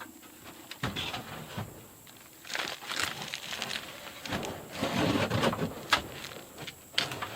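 A wooden chicken roost being pulled out of a coop: scattered knocks of wood on wood, with rough scraping and rustling as it is shifted and dragged.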